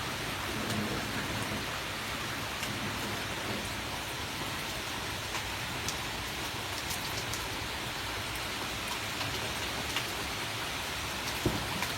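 Heavy rain falling steadily in a thunderstorm, with scattered sharp drop hits through the hiss. A single louder tap comes near the end.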